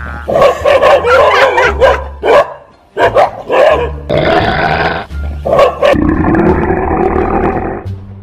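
Dogs barking and growling as they attack, loud and continuous apart from a short break about three seconds in.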